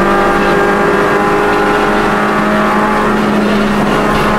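Rally car engine heard from inside the cabin, running hard at high, steady revs in one gear, its pitch creeping slightly higher as it pulls.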